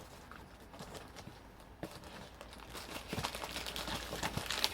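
A parcel's packaging being torn open and handled: a run of small crinkles and rips, faint at first and growing busier from about two seconds in.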